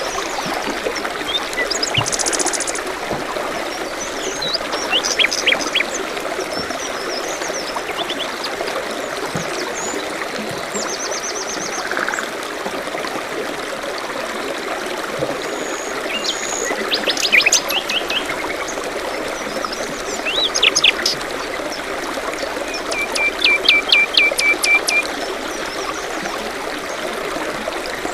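A forest stream trickling steadily, with songbirds chirping and trilling over it in short scattered phrases, including a quick run of repeated notes near the end.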